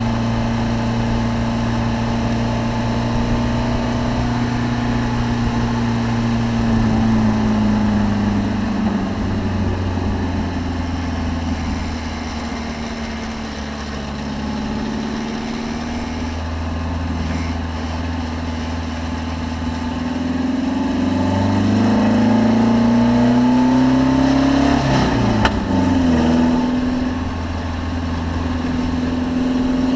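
Race car engine running continuously on track, its note falling off about a quarter of the way in, holding low, then climbing again and settling, with a short sharp click as it levels off. The engine is the one the title reports as misfiring.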